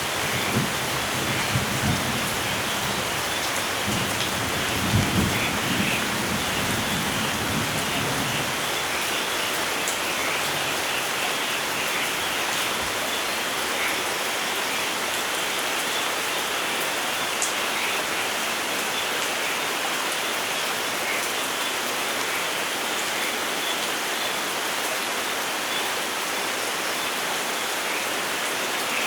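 Steady heavy rain with rolling thunder rumbling in the first several seconds, loudest about five seconds in, then dying away under the rain.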